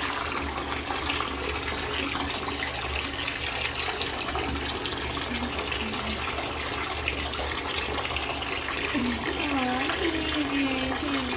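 Water running steadily from a tap into a bathtub while a dog is washed.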